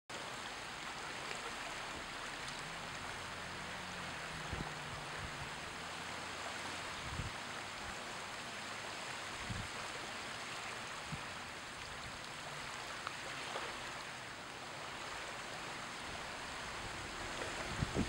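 Small, low-tide ripples lapping and washing over a wet sandy beach, a steady soft hiss of water. A few soft low bumps sound through it, more of them near the end.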